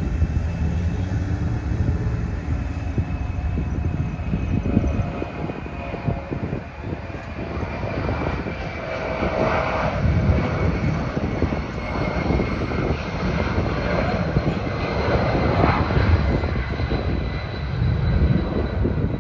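Boeing C-17 Globemaster III's four Pratt & Whitney F117 turbofans climbing out: a loud, continuous jet rumble with a high whine that slowly falls in pitch as the aircraft passes and moves away.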